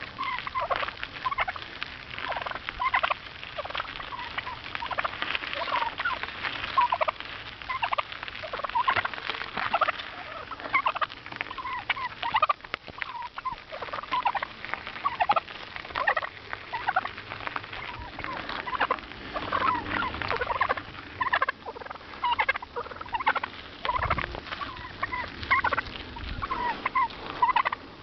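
Wild turkeys calling over and over in short, quick notes.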